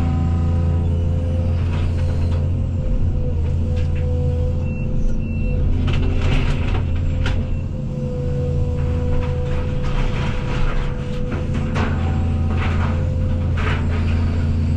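Case CX220E excavator's diesel engine running steadily with a constant whine. Through the middle and later part come repeated knocks and cracks of old barn timber breaking as the machine pulls the structure apart.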